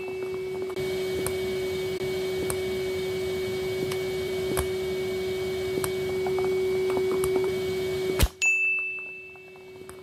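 Numatic Hetty vacuum cleaner motor running with a steady hum, while ping pong balls click sharply against its plastic body about once a second. About eight seconds in, a loud knock comes with a bright ringing chime, and the hum then drops much quieter.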